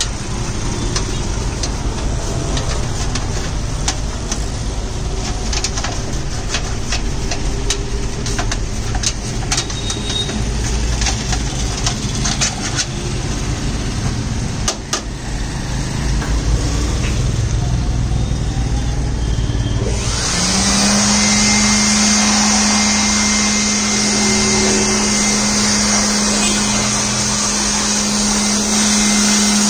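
Clicks and rattling of a desktop PC case being handled and tipped, then about two-thirds of the way through an electric hand air blower starts and runs steadily, a motor hum under a high rush of air, to blow dust out of the computer.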